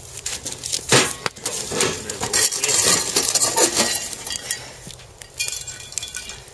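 Metal scoop scraping and crunching through hot embers and charcoal in a steel fire box, with sharp metal clinks. Near the end the embers are tipped onto the lid of a cast-iron camp oven to heat it from above.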